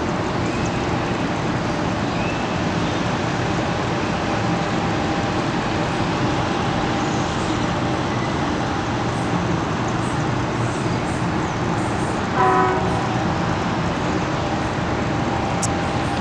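Steady city traffic noise, with a short horn toot about twelve seconds in.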